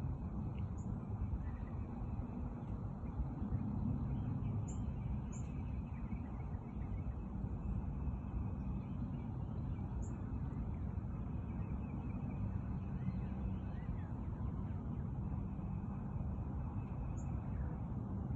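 Steady low outdoor rumble, with faint high bird chirps a handful of times.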